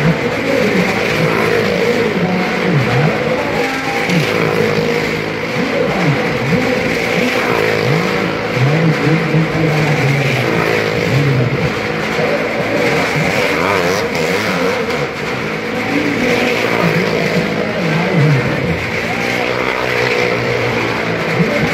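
Several vehicle engines running and revving together in a well-of-death show, their pitch rising and falling continuously as they circle the wall.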